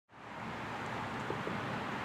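Steady outdoor background hiss with two faint ticks about a second and a half in, before any siren sound begins.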